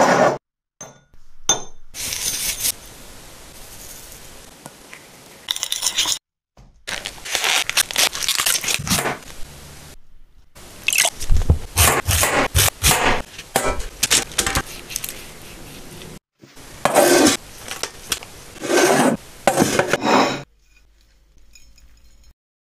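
A string of short kitchen sound clips, each broken off by a brief silence: a ceramic bowl set down on a wooden surface, then a large knife crunching through raw cauliflower on a wooden chopping board in repeated cuts, with scrapes and clinks of dishes between.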